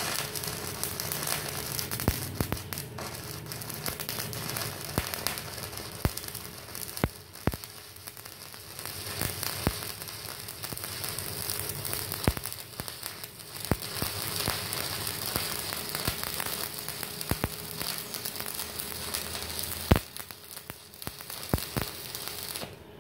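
Stick (SMAW) welding arc from an ES1200 inverter welding machine burning continuously on steel plate: a steady crackle and sizzle with frequent sharp pops. The arc breaks off just before the end.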